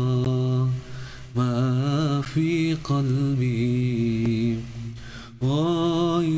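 A man chanting zikir alone in long, drawn-out melodic phrases, his pitch gliding and wavering on held notes. He breaks off briefly twice, about a second in and about five seconds in.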